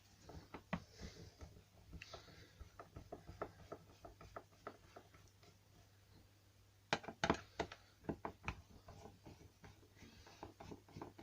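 Light clicks and knocks from handling the strimmer's recoil starter assembly, with a louder run of knocks about seven to eight and a half seconds in.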